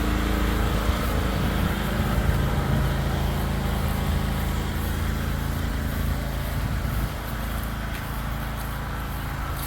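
Pressure washer's engine running steadily at a constant speed, easing a little quieter about seven seconds in.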